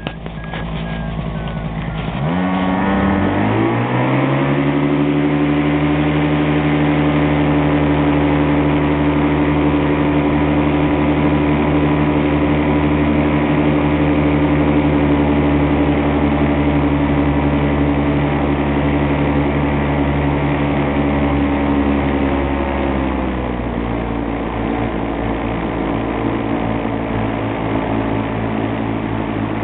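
Miniplane Top 80 paramotor's small two-stroke engine and propeller, revved up from a low speed to high power about two to four seconds in and held there steadily, then throttled back to a lower steady pitch about 23 seconds in.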